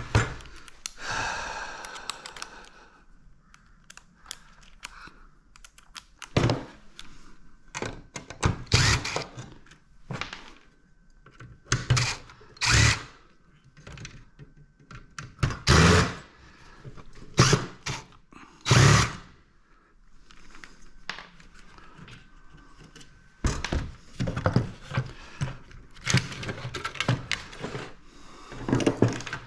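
Scrap parts being handled and dismantled by hand: a string of separate clunks and knocks, with quieter rattling between.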